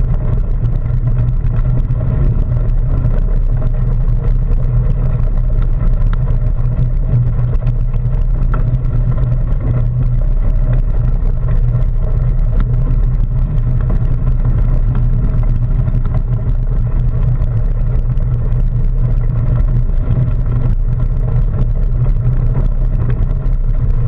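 Steady loud rumble of mountain bike tyres rolling over a gravel trail, mixed with wind noise on a bike-mounted action camera.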